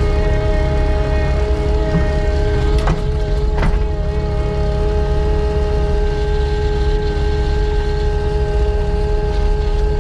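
Skid loader engine running at a steady speed, with a deep rumble and a steady pitched drone; two short clicks or knocks about three seconds in.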